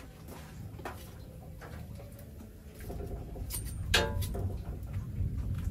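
Wood fire crackling with scattered small pops over a low steady rumble, with a sharper, louder knock about four seconds in as the roasting breadfruit are turned in the fire.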